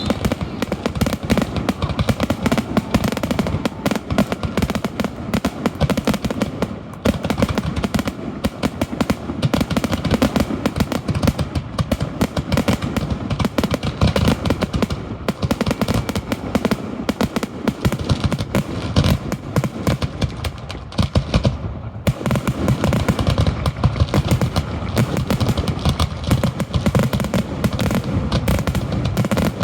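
Aerial firework shells bursting in a dense barrage, a rapid run of overlapping bangs and crackles with deep rumbling booms. The barrage thins briefly twice, about a third of the way in and again about two-thirds in.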